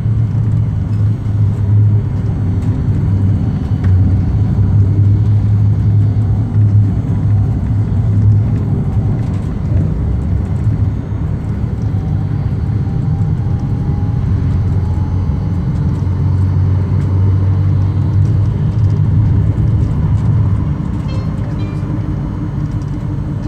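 Ruhrbahn M8D-NF articulated tram running: a loud, steady low rumble and hum that eases a little in level twice, with a faint thin whine around the middle.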